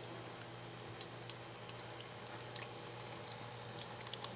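Faint trickling of a small terrarium waterfall, with scattered little drips and splashes.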